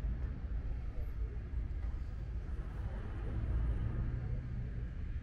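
City street ambience: a steady low rumble of traffic with indistinct voices of passers-by, clearest in the second half.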